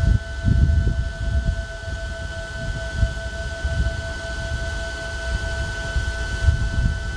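A steady whine holding two fixed pitches from the vehicle-mounted laser weapon system's equipment, over an uneven low rumble.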